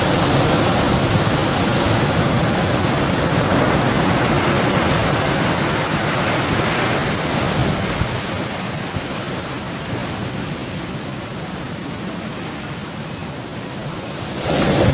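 Rough sea with big waves rushing and surging, mixed with wind. It eases off for a few seconds in the second half, then surges up abruptly near the end as another wave hits.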